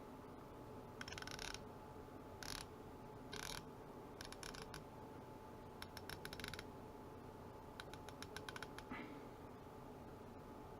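Britool Hallmark MR280 3/8-inch drive ratchet's 48-tooth mechanism clicking, in about six short bursts of rapid fine clicks as the handle is swung back and forth.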